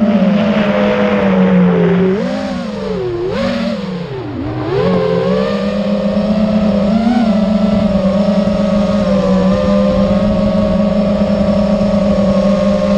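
TBS Mr Steele 2345 KV brushless FPV motor spinning with a pitched whine, its pitch rising and falling with throttle for the first few seconds and then held nearly steady. The uploader says it sounds bad and that something is wrong with it.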